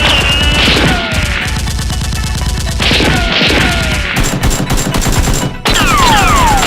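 Rapid bursts of gunfire sound effects, with several falling whistle-like tones, over a steady music beat.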